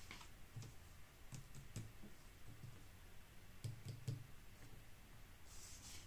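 Faint light clicks and taps of paper pattern sheets being handled and pressed down on a cutting mat, with three close together about four seconds in, and a soft rustle of paper sliding near the end.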